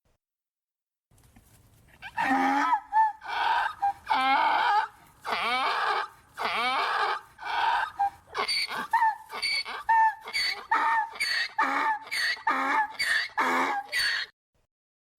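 Donkey braying: a long run of calls that begins about two seconds in with several long, drawn-out notes, then quickens into shorter, rapid ones before stopping abruptly near the end.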